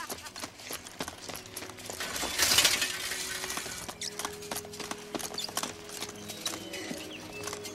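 Running footsteps on a dirt path with metal leg braces clattering and coming apart, irregular clicks and knocks throughout and a louder clattering burst about two and a half seconds in.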